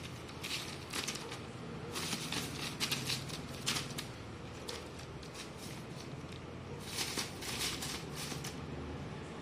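Newspaper rustling and crinkling under a kitten's paws as it pounces and scrabbles on it. The crackles come in three flurries: about a second in, from about two to four seconds, and again around seven to eight seconds.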